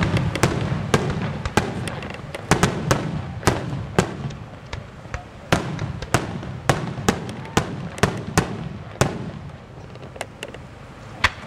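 Aerial firework shells bursting in a rapid, irregular run of sharp bangs over a low rumble. The bangs thin out and grow fainter after about nine seconds, with one louder bang near the end.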